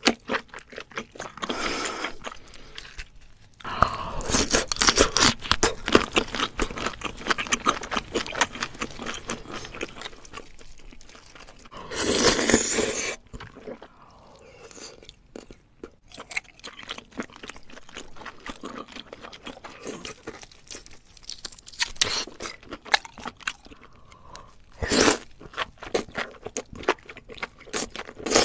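Close-miked eating of spicy sauced octopus and scallops: wet chewing, crunching and slurping, dense with small clicks and smacks. There are louder stretches about four seconds, twelve seconds and twenty-five seconds in.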